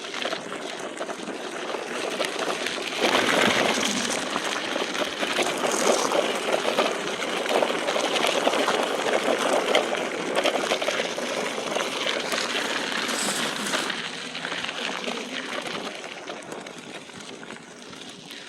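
Tyres of a home-built electric go-kart rolling and crunching over sand and loose dirt on a dirt track, a steady gritty noise that grows louder a few seconds in and fades over the last few seconds.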